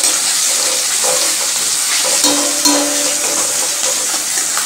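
Crushed garlic sizzling steadily in hot mustard oil in a steel kadai, with a few light scrapes and knocks of a metal spatula against the pan.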